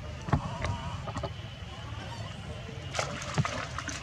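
Young macaques splashing and scrambling through shallow muddy water, a series of sudden splashes, the loudest about three seconds in, over a steady low rumble.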